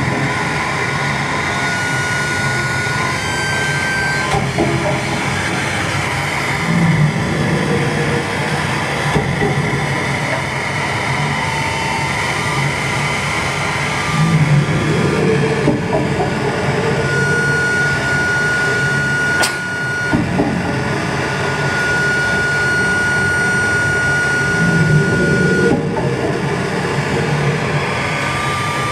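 Live harsh electronic noise played on a tabletop rig of effects units and patch cables: a loud, dense rumbling wash that sounds much like a passing train. A thin high whistling tone is held for a few seconds at a time, and low swells rise out of it every several seconds.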